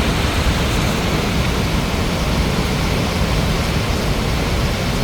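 Steady, loud rushing of a river waterfall, water pouring and churning close to the microphone.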